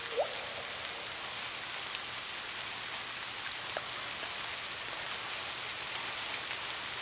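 Steady soft rain hissing, with a few single water drops plinking into water, each a quick rising blip, one near the start and a couple around the middle.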